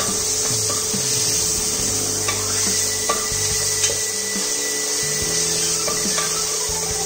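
Wooden spatula stirring and scraping a crushed spice paste as it fries in oil and ghee in an aluminium pressure cooker, with a few light knocks against the pot. The paste is stirred until its raw smell cooks off.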